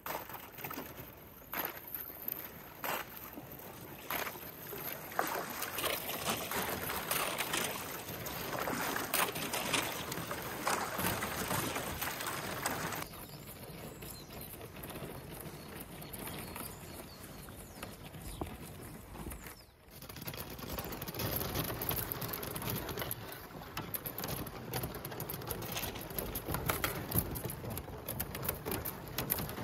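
Sea kayaks pushing through thin skim ice: a dense crackling and clicking of ice breaking against the hulls, with paddle strokes in the water. It is loudest in the first half and somewhat quieter after about halfway.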